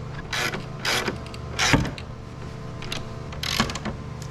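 Ratchet wrench tightening a stainless steel bolt down through a wooden deck board: four short, loud, grating creaks, one per stroke of the handle.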